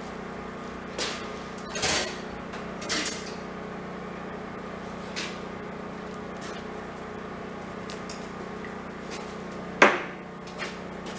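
Metal parts and tools being handled on a workbench: a few scattered clinks and knocks, the sharpest one near the end, over a steady low hum.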